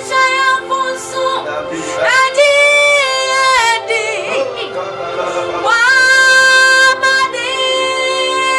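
A woman singing a gospel worship song. Her phrases include long held notes that swoop up in pitch at their start.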